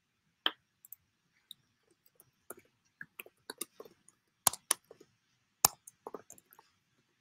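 Computer keyboard being typed on: about twenty short, sharp clicks in uneven clusters, the loudest about half a second, four and a half and five and a half seconds in.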